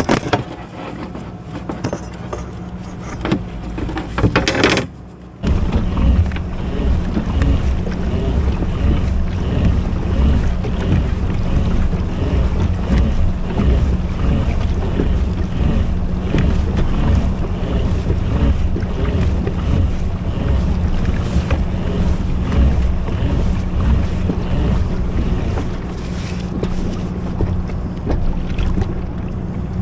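Kayak underway on open water: wind rushing over an action camera's microphone along with water noise and a steady low hum, settling in about five seconds in after a few knocks.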